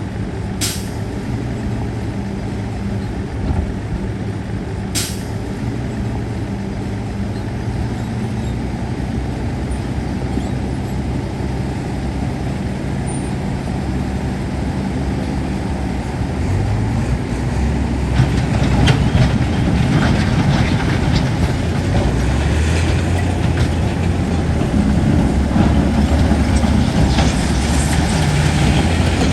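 Heavy diesel earthmoving machinery running steadily, with two short sharp sounds about a second in and about five seconds in. From about 17 seconds on it grows louder, with more clatter, as the engine comes under load.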